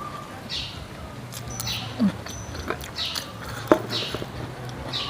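Close-miked eating sounds: chewing and wet lip smacks in a steady rhythm of about one or two a second, with two louder short mouth sounds about two seconds and three and a half seconds in.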